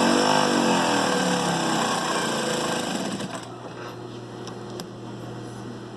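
Brother DB2-B755-3 industrial lockstitch sewing machine running at speed, its pitch swinging, then stopping a little past halfway. A steady low hum remains, with a couple of light clicks.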